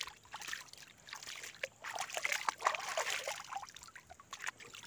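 Light, irregular splashing and trickling of water as a bather stirs it with his hand while standing waist-deep, with small drips and plops.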